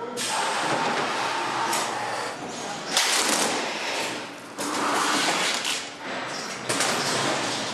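Packaging-line machinery: a hissing mechanical whir that breaks off and starts again abruptly several times, from an automatic strapping machine banding a motorcycle shipping crate.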